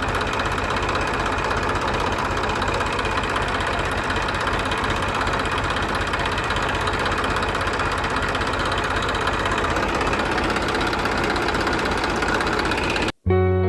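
Tractor engine running steadily with a rapid, even chugging. It cuts off suddenly near the end, and guitar music begins.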